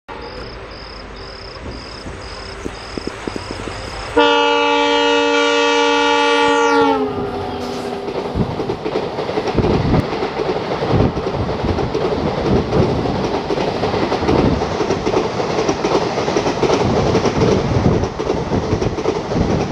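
Oncoming WDP4D diesel locomotive sounding a long horn blast, about three seconds, that drops in pitch at its end as it passes close alongside. Its coaches then rush past with a loud steady roar and the clickety-clack of wheels over rail joints.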